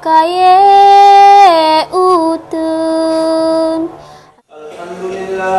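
A single high, child-like voice chanting in long held notes, in three phrases with short breaks and brief pitch turns between notes. After a pause it resumes more softly near the end.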